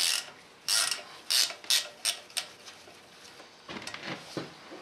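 3/8-inch ratchet clicking as a threaded plug that has just broken loose is backed out of a Cummins diesel cylinder head: about six sharp clicks over the first two and a half seconds, then softer ticks near the end.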